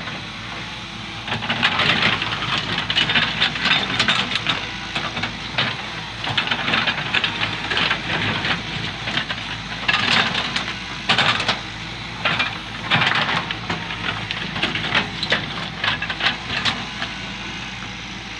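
Volvo EW145B wheeled excavator's diesel engine running under load while the bucket digs into stony soil, with dense, irregular crackling and scraping of earth and stones starting about a second and a half in and easing off near the end.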